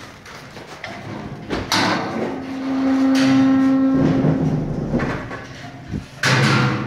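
Metal sow stalls and pen gates clanking, with a sharp knock about one and a half seconds in and another near the end. In between, a steady low tone lasts about two seconds.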